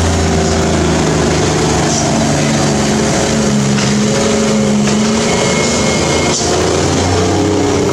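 Hino truck's diesel engine running at low revs as the heavily loaded truck crawls round a tight hairpin bend, its note shifting in pitch as it works through the turn, with a brief knock near the end.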